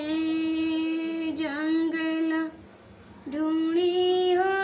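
A woman singing a Bhojpuri devotional folk song to Shiva, unaccompanied, drawing out a long held note, then after a short breath a second long note that rises slightly.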